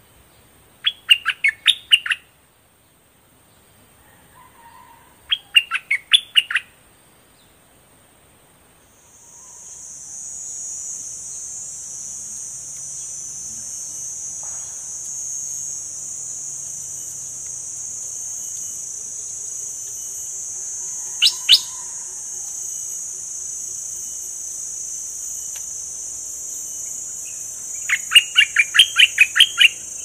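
Caged bulbul singing in short bursts of quick, loud notes: two phrases in the first seven seconds, a brief one about two-thirds through and a longer run near the end. A steady high-pitched buzz sets in about nine seconds in.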